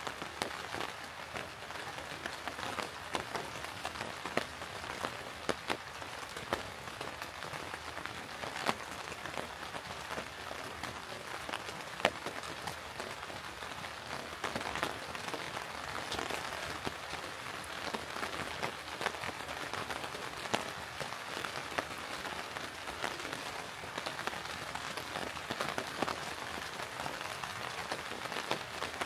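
Steady rain falling, a constant hiss with sharp ticks of individual drops scattered throughout.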